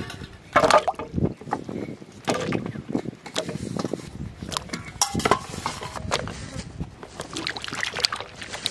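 Vegetables dropped one after another into a metal bowl of water, splashing, then swished and rubbed by hand in the water, in irregular sloshes.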